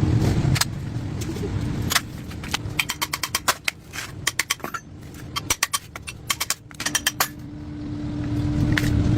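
A run of quick, sharp metallic clicks and taps in irregular clusters, like tools and metal parts being handled. A low rumble drops away early, and a steady hum comes in near the end.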